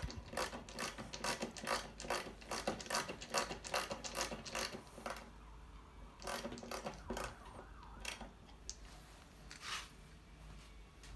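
Manual screwdriver driving a solid brass screw into a wall plug, a fast run of sharp clicks for about five seconds as it is turned. A few scattered clicks and knocks follow.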